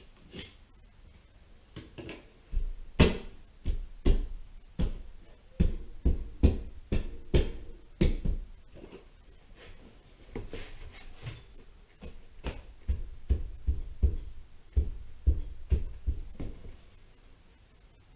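Irregular dull thumps and knocks, a few a second, as a drywall patch piece is pushed and knocked into a cutout in the wall, with a short lull partway through.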